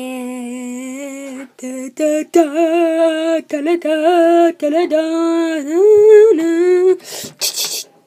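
A child's voice singing a wordless tune in long held notes, stepping and gliding between pitches with a slight waver. A short hiss comes about seven seconds in.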